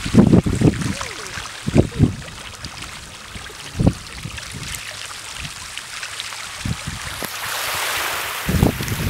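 Wind buffeting the microphone in irregular low gusts, over a steady hiss of small waves washing onto a sand-and-gravel beach; the wash swells briefly near the end.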